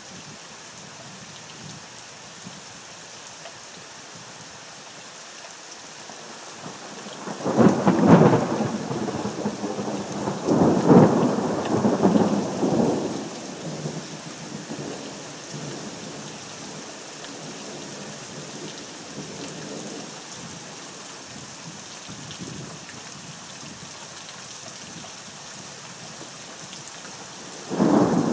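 Thunderstorm: steady rain hissing down, with a roll of thunder about a quarter of the way in that swells twice and slowly rumbles away over several seconds. A second peal of thunder breaks right at the end.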